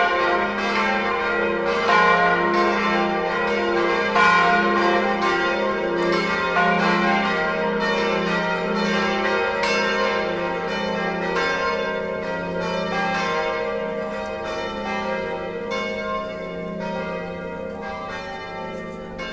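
Festive full peal (distesa) of the five largest bronze bells of a nine-bell ring in F, swung electrically so that they strike in overlapping, irregular rounds, the largest only half-swinging, a ringing that calls the faithful to Sunday Mass. The peal grows gradually fainter over the last several seconds.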